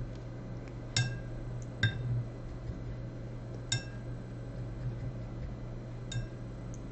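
Paintbrush clinking against a glass jar of rinse water: four separate light taps spread over several seconds, each with a short ring.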